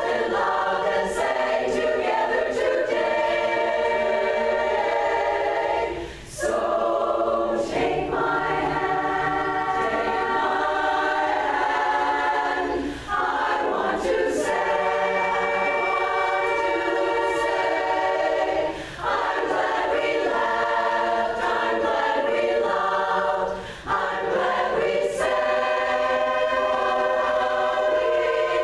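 Women's barbershop chorus singing a cappella in close harmony: held chords, phrase after phrase, with a brief breath break about every six seconds.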